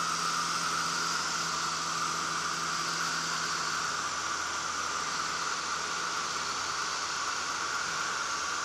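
Marquart MA-5 Charger biplane in flight, heard from the cockpit: a steady rush of wind and propeller noise over the engine's drone. The engine's low hum fades further under the wind about halfway through.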